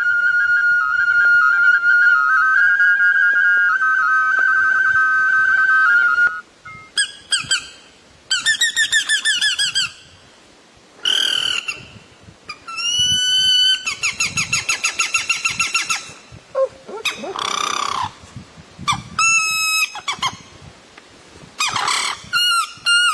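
Man whistling bird calls into his cupped hands: first one long, steady whistled note that steps slightly up and down in pitch for about six seconds, then a series of short bird-like calls, including fast trills and rapid repeated chirps, with brief pauses between them.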